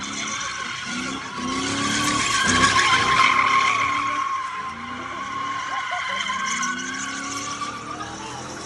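Car tyres squealing in one continuous high screech that swells loudest a couple of seconds in, with voices underneath.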